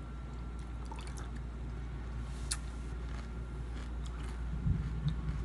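Spoon dipping and clicking in a bowl of raisin bran and milk, with a few light, wet clicks and a low thump near the end, over a steady low hum.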